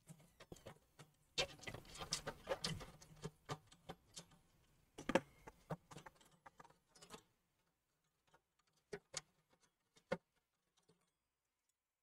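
Faint scattered clicks and light metal taps of a screwdriver, screw and sheet-metal bracket as the retaining screw and bracket panel holding a desktop graphics card are taken out. The taps come thickly for about seven seconds, then only a few single clicks follow.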